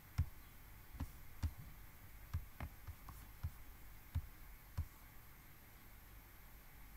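Computer mouse clicking: about eight short, sharp clicks in the first five seconds, then only a faint steady hiss.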